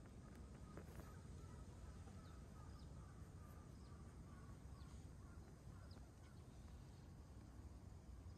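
Near silence: faint outdoor ambience with a low rumble and a few faint, short high chirps.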